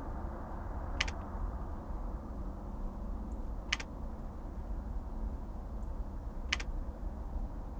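Steady low room hum with three sharp clicks, evenly spaced a little under three seconds apart.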